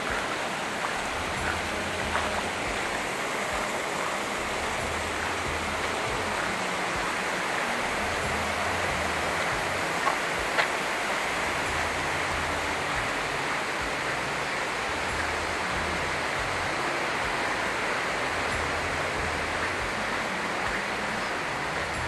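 Steady rush of a small mountain stream cascading over rocks, with a couple of light clicks about ten seconds in.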